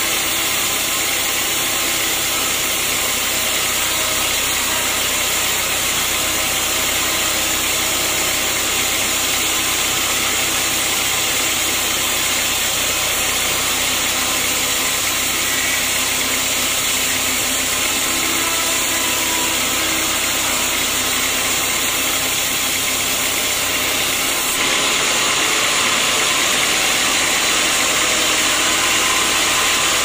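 Band sawmill running steadily as its blade cuts through a teak log. About five seconds before the end the noise steps up a little louder.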